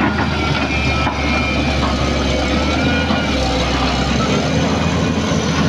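SANY SY215C hydraulic excavator's diesel engine running steadily at a low rumble as the machine travels on its crawler tracks.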